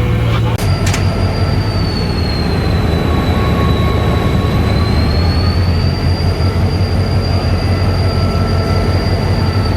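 Diesel locomotive engine running steadily with a low drone and a high whine that slowly wavers in pitch. Two sharp clicks come shortly after the start.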